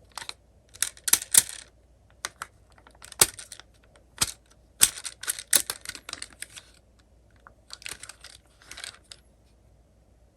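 Small die-cast toy minicars clicking and clattering against one another as they are handled, in irregular bursts of light knocks with short pauses between.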